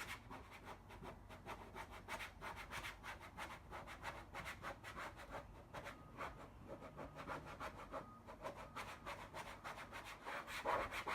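A plastic credit card rubbing and scraping over a vinyl decal on trailer sheet metal in many quick, repeated strokes, squeegeeing the decal down to push out air bubbles.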